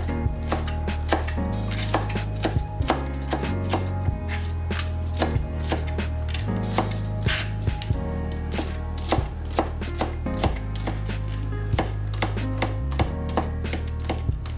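Knife chopping food on a cutting board, sharp strokes at about two to three a second, over background music with sustained low notes.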